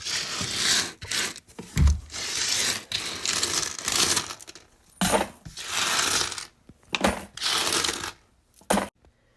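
Handfuls of loose coins scraped up off the floor and dropped into a coin bank, clinking in repeated bursts with brief pauses, and a dull thump about two seconds in.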